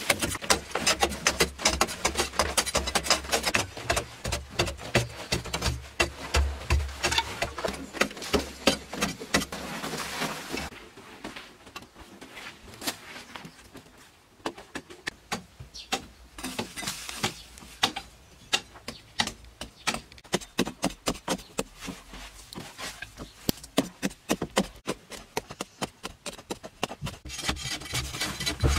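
Hand tools digging and scraping in packed earth, with loose soil being shovelled and thrown: a steady run of quick, irregular knocks and scrapes. A low rumble sits under the first third. The strikes go softer for a few seconds, then pick up again.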